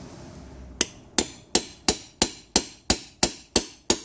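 Hammer tapping a homemade pointed steel punch, made from reinforcing bar and spring steel, into the old rear main crankshaft seal to pierce it so it can be levered out. Ten sharp strikes at an even pace of about three a second, starting about a second in.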